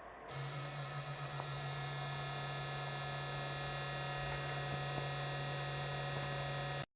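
Cooling fan in the base of a Creality K1 3D printer running with a grinding noise from its failing bearing. It is a steady hum with several fixed tones; it comes in just after the start and cuts off suddenly near the end.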